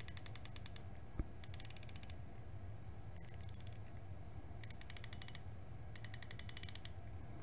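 Drag clicker of a Haibo Arise LFC Air spinning reel, a fast ratcheting click heard in about six short bursts a second or so apart. The click is a little plasticky, with a little bit of metallic sound.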